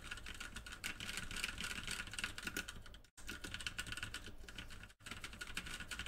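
Fast continuous typing on an E-Element Z88 budget mechanical keyboard with Outemu switches and double-shot keycaps: a dense run of key clacks that cuts out for an instant twice.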